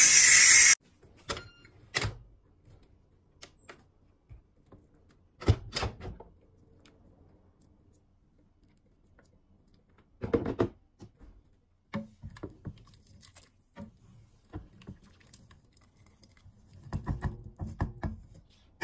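A loud hiss cuts off abruptly just under a second in. Then come scattered clunks and knocks as the lid of a Ninja Foodi pressure cooker is handled and opened and a wooden ladle knocks against the inner pot while stirring.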